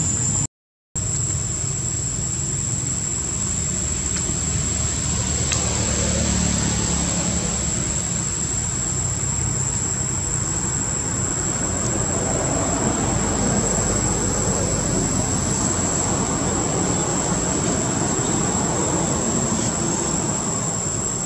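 Steady outdoor background noise: a low rumble and hiss with a continuous high-pitched whine over it, cutting out briefly under a second in.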